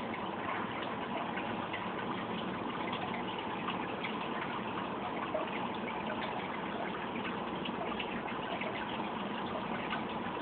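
Aquarium water running and bubbling steadily, full of small crackles, with a faint steady hum beneath.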